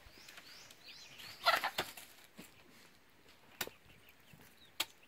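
A chicken flapping its wings inside a bamboo cage, in a loud burst about a second and a half in. A few sharp knocks follow, and there are faint high peeps near the start.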